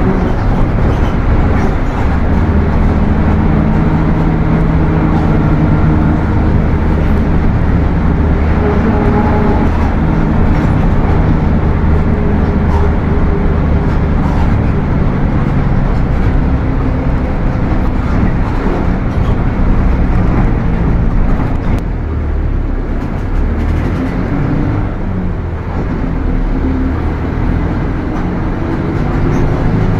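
Mercedes-Benz OF 1721 bus's four-cylinder diesel engine running under way, its pitch shifting as it drives, with the transmission whining loudly. It drops a little in level for a few seconds about two-thirds of the way through.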